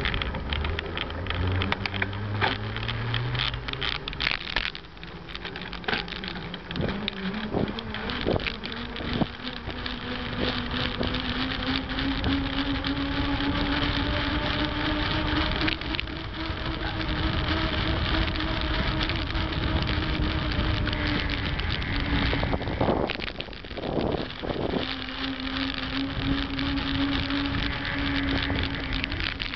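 Knobby Panaracer Rampage mountain-bike tyres whining on pavement while riding. The whine climbs in pitch as the bike picks up speed and then holds fairly steady, over a constant rush of wind and road noise. Scattered clicks and knocks come in the first several seconds, and there is a short break in the whine a little before the end.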